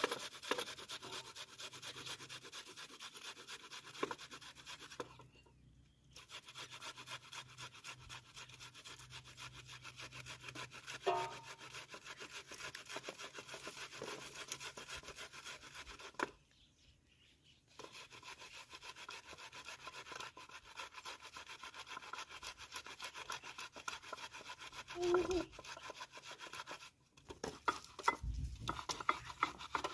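Fast, repeated scraping strokes, going on steadily with three short breaks.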